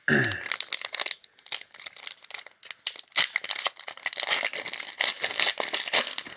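Foil booster pack wrapper being torn open and crinkled by hand, a dense run of irregular crackles.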